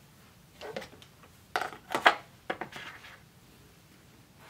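Packaging being handled on a desk: a few short rustles and knocks, the loudest about two seconds in.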